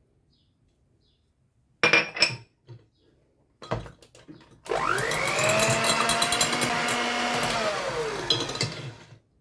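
A few sharp clattering knocks, then an electric mixer runs for about four seconds, beating eggs, sugar and grated lemon zest for a cake batter. Its whine rises as it spins up, holds steady, and falls away as it stops.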